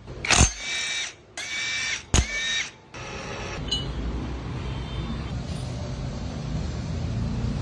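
A power tool such as an electric drill or impact driver runs in three short bursts of about half a second each, each with a whine and a click at the start. After about three seconds it gives way to a steady, even background noise.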